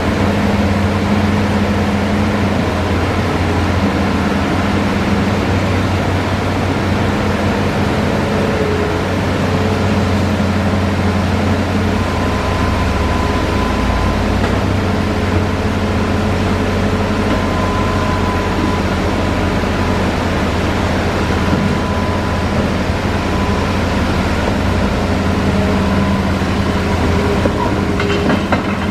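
Hitachi Zaxis 5G hydraulic excavator's diesel engine running steadily at working speed, with a faint higher whine that comes and goes.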